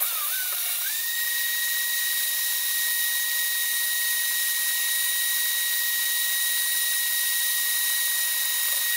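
EFCO TD-03 portable lathe running while it machines the safety valve's seat: a steady high whine over an even hiss. The whine rises in pitch over about the first second as the machine comes up to speed, then holds level.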